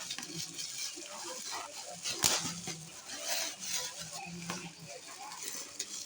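Light rustling and scattered small clicks and knocks from handling an unboxed item and its packaging, with one sharper click a little after two seconds in; faint voices murmur underneath.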